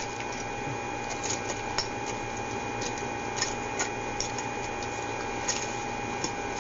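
Steady hiss and a thin, constant electrical whine on a store security camera's audio, with about ten scattered small clicks and taps.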